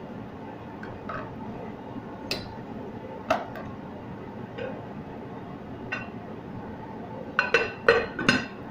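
A metal spoon clinking now and then against a glass cooking pot, then a quick run of louder glass-on-glass clinks near the end as a glass lid is set on the pot, over a steady low hiss.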